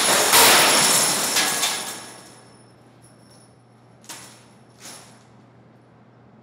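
Heavy scrap-iron pieces crashing and clanging onto a metal heap against a magnetized wall, with a metallic ring that dies away over about two seconds. Then two short clinks of loose steel nails being handled, about four and five seconds in.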